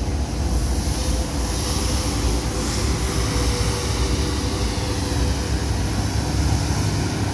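Street-sweeper truck running past with its brushes: a steady low rumble with a hiss over it.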